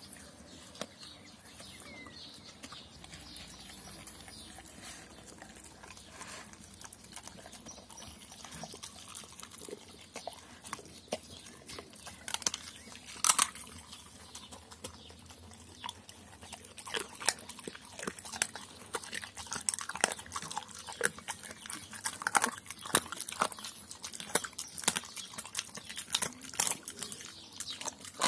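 Doberman pinscher eating wet meat and rice: chewing and mouth noises with irregular sharp clicks, which come thicker in the second half.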